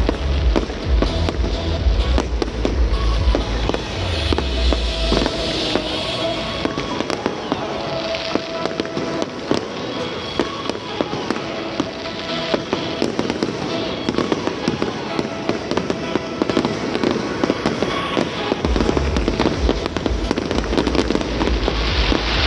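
Fireworks bursting and crackling overhead, a dense run of sharp bangs and crackles, with music playing underneath. A deep low booming is strong for the first four seconds, drops away, and returns near the end.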